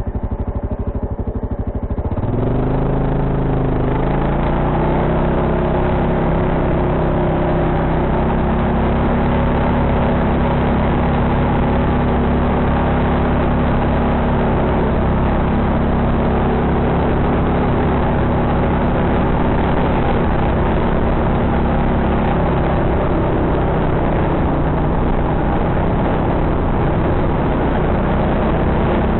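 ATV engine running under way: it revs up about two seconds in, then holds steady at higher revs with small rises and falls in pitch.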